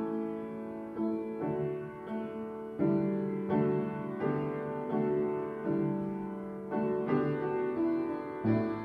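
Slow instrumental piano music, new notes and chords struck every second or so and left ringing over one another.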